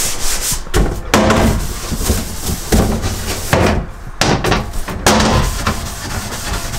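Scrub brush scrubbing a portable toilet's plastic seat: a run of rough, irregular rubbing strokes with the odd knock of the brush against the plastic.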